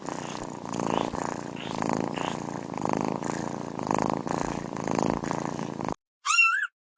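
A kitten purring steadily, swelling and fading about once a second, which stops suddenly. A short high-pitched kitten meow follows near the end.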